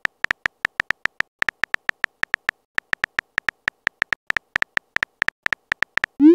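Smartphone on-screen keyboard click sounds: short ticks about five a second, as if a message is being typed. Near the end a short rising tone, like a message-sent sound.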